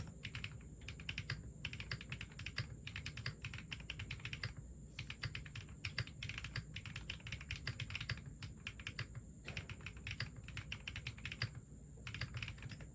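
Fast typing on a Zoom65 mechanical keyboard with HMX Hyacinth V2U linear switches: rapid runs of keystrokes broken by short pauses, ending a little before the close. A faint steady high-pitched whine sits under it.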